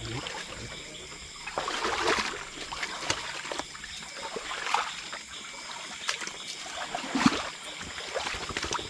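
Water splashing and trickling in uneven surges, with a sharper splash or knock about seven seconds in.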